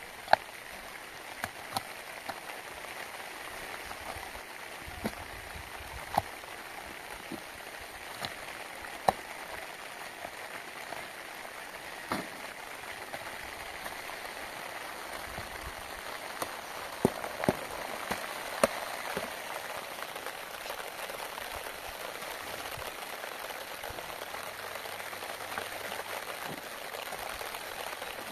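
Steady rain falling, with single louder drops striking close by at irregular moments every second or few.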